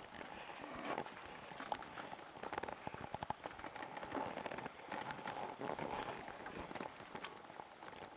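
Scattered light clicks, taps and rustling from hands working on a stalled BSA A65 motorcycle, with a small cluster of clicks about three seconds in.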